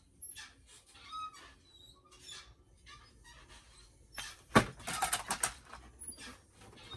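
Plastic clicking, creaking and small squeaks as a fashion doll's head is worked off its neck peg. A louder cluster of crackly clicks comes about four seconds in.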